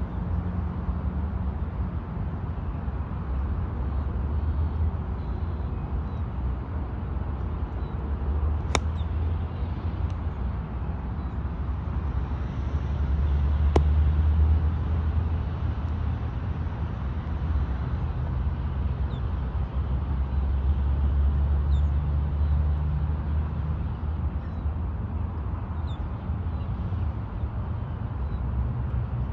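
Low, uneven wind rumble on the microphone, with two sharp clicks of a golf club striking a ball about 9 and 14 seconds in and a few faint bird chirps.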